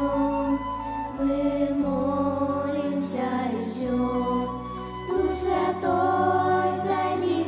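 A group of young girls singing a Russian worship song together into microphones, over instrumental accompaniment with sustained low bass notes that change every second or so.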